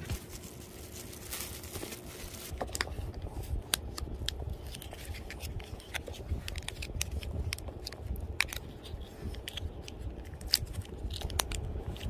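Packaging being opened and handled by hand: a short tearing hiss about a second in, then scattered sharp clicks and crinkles as the package is worked open.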